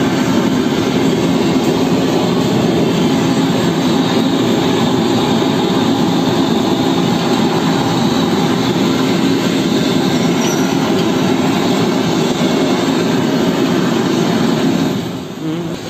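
Gas blowtorch flame running with a loud, steady rushing roar as it singes the skin of a plucked chicken; the roar drops in level near the end.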